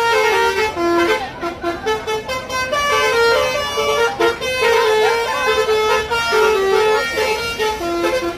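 Basuri multi-tone musical air horns on two buses playing a koplo melody together. The held notes step up and down without a break.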